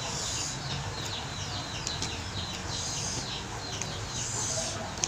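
Eating by hand: fingers picking through and squishing chilli-covered goat meat, with brief wet, hissy bursts near the start, about three seconds in, and near the end. Birds chirp throughout, in many short, high, falling chirps.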